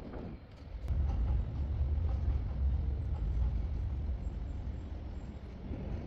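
Low, steady rumble of a Docklands Light Railway train moving slowly through an elevated station, starting about a second in.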